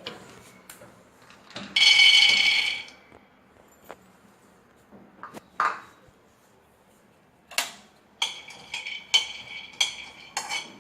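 Groundnuts being dry-fried in a metal pan. The pan rings loudly for about a second near the two-second mark, and from about seven and a half seconds a spatula clinks and scrapes against it again and again.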